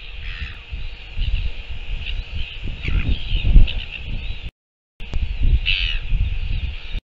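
Wind gusting on the microphone over a constant chatter of bird calls, with one louder harsh call near the end. The strongest gust comes about halfway through, and the sound cuts out completely twice for half a second.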